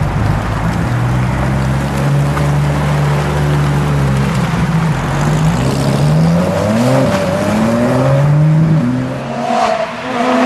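Porsche 992 GT3 RS naturally aspirated 4.0-litre flat-six running through a Fabspeed Valvetronic cat-back exhaust with aftermarket headers and high-flow cats. The engine note is low and steady at first, then from about five seconds in it revs up and drops back several times as the car pulls away.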